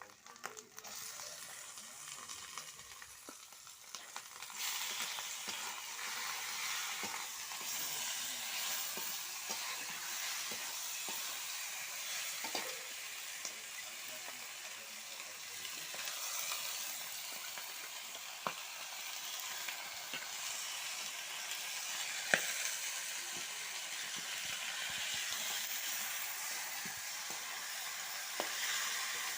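Chicken frying in hot oil and spice paste in a pan, a steady sizzle that grows clearly louder about four and a half seconds in, as the chicken goes in, and then keeps on, with occasional clicks of a spoon stirring.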